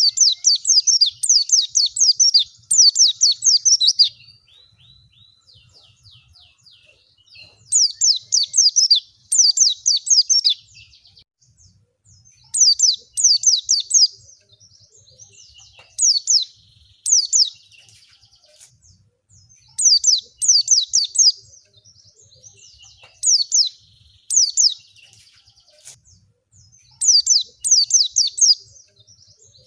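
White-eye (pleci) song: rapid strings of very high, sliding twittering notes in repeated bursts of one to four seconds, with short pauses between.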